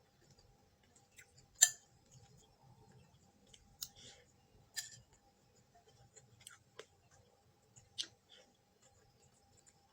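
Sharp clicks and clinks of eating utensils, about half a dozen at irregular intervals, the loudest about one and a half seconds in.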